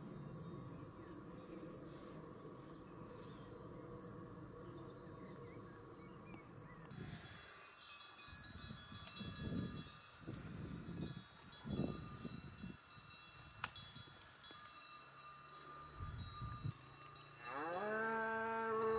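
Insects chirping steadily in the grass, a fast pulsed high-pitched trill. Near the end a cow gives one long moo lasting about two seconds.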